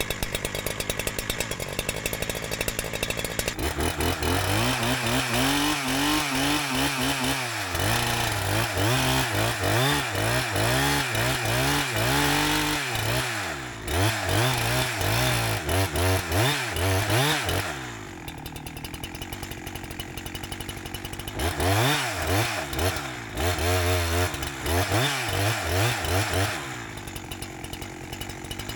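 Holzfforma 372xp two-stroke chainsaw, a Husqvarna 372XP clone being broken in on a rich tune. It runs at high revs in long spells with the pitch wavering up and down, and drops back to a lower idle about 18 seconds in and again near the end.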